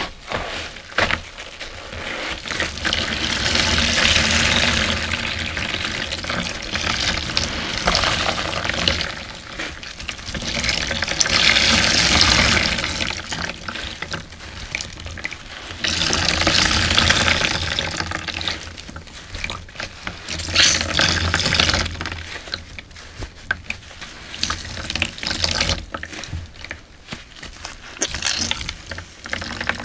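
Tap water gushing over a soapy sponge being rinsed and squeezed in a sink, in several long loud stretches. Quieter wet squelches and short splashes come between them and through the last part.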